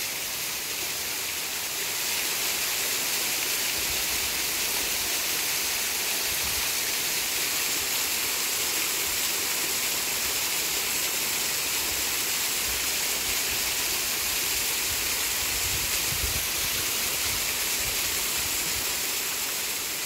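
Steady rush of a waterfall pouring into a rocky pool, with a few faint low rumbles.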